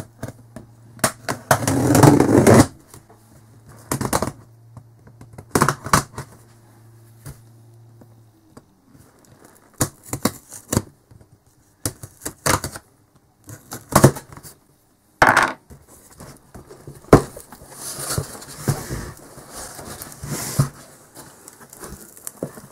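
A cardboard parcel being opened by hand: packing tape cut and torn, with a longer tearing stretch about two seconds in, then the box flaps and cardboard knocked, scraped and rustled in irregular sharp bursts.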